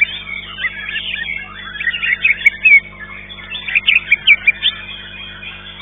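Murai batu (white-rumped shama) singing in three loud bursts of quick, sharp whistled notes, over a constant background of other caged songbirds chirping at a bird-song contest.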